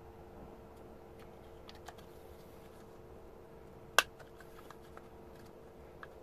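Plastic housing of a car door control module being handled and pressed back together around its circuit board: small scattered clicks and rattles, with one sharp snap about four seconds in as a part clips into place. A faint steady hum lies underneath.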